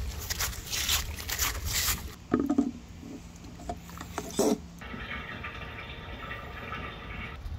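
Rolling plastic water carrier pulled across grass and fallen leaves, crackling, then a few sharp knocks as the hose is worked into its filler opening. A steady hiss runs for a couple of seconds near the end.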